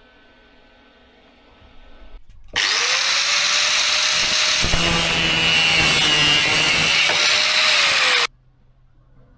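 A handheld power tool runs loudly for about six seconds, starting about two and a half seconds in and stopping abruptly. Its motor tone rises as it starts and sinks just before it cuts off.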